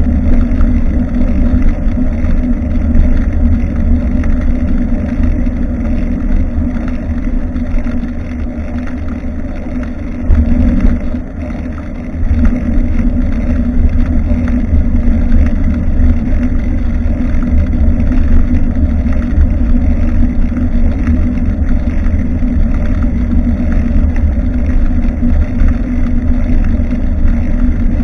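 Wind buffeting the microphone of a rear-facing action camera on a moving bicycle: a steady low rumble that eases for a few seconds about ten seconds in.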